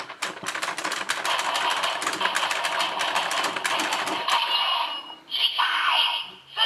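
DX Geartlinger toy morpher playing its electronic finishing-attack sound effect through its small speaker: a fast run of rattling clicks, changing about four seconds in to electronic tones.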